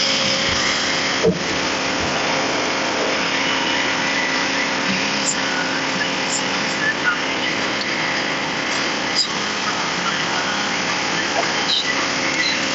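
Wood-processing machine running steadily: a constant motor drone under a broad hiss, with a few light knocks.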